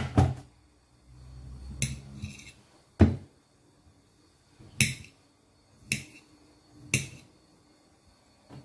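Sharp knocks and clicks of kitchen items being handled on a worktop, about seven in all, spaced irregularly a second or so apart.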